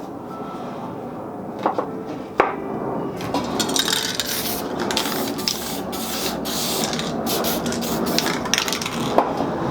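Spray paint cans hissing in many short bursts, mixed with knocks and clicks, with sharp knocks in the first few seconds.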